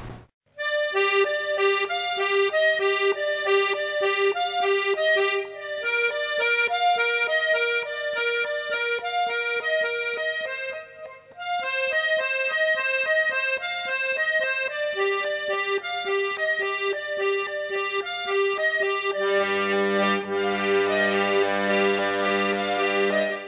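Accordion music: a melody of short repeated notes over steady held bass notes, breaking off briefly about halfway and ending on fuller, held chords.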